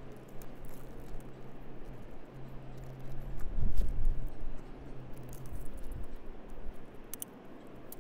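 Light handling noise as a tape measure is worked against the chimney brick: small clicks and rattles from the tape and tools, busiest a few seconds in, over a low steady hum and wind rumble.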